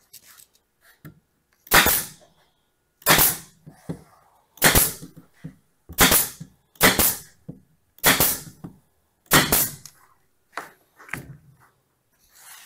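Pneumatic 18-gauge narrow-crown stapler shooting 1-inch staples into a plywood cabinet side: seven sharp shots about a second to a second and a half apart, each with a short tail, then two lighter ones near the end.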